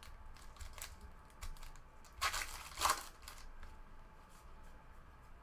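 A trading card pack's wrapper being torn open and crinkled by hand, with two louder rips about halfway through.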